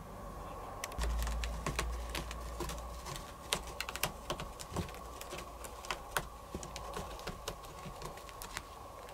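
Irregular light clicks and scratches of a kitten's claws catching and scraping on a looped carpet as it wrestles and kicks at a hand, several clicks a second. A low rumble for about two seconds near the start.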